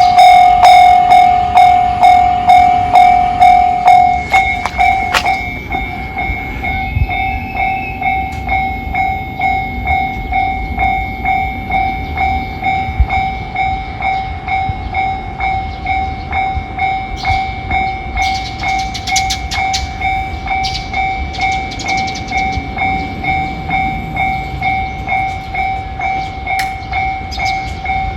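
A Japanese railway level-crossing alarm (JR standard tone) rings in a fast, even repeating clang, louder for the first few seconds, over the low rumble of a passing train. Patches of high hiss come partway through.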